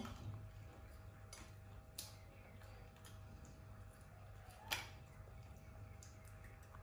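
A few faint, sharp cracks and clicks over a steady low hum: a pet monkey handling and biting crispy rolled wafers. The loudest crack comes a little under five seconds in.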